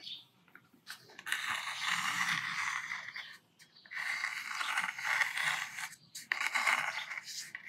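Metal dip-pen nib scratching across watercolour paper as it draws long ink lines, in three drawn-out strokes.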